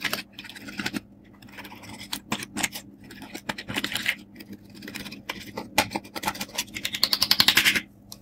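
A thin metal tool scraping and picking at pressed eyeshadow pans in a plastic palette, the powder crumbling with irregular scratches and clicks. Near the end comes a fast run of clicks, about a dozen a second for roughly a second, then it stops.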